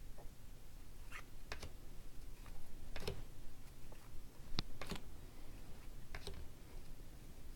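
Hockey trading cards being handled and set down: scattered light clicks and snaps, irregularly spaced, the sharpest a few seconds in.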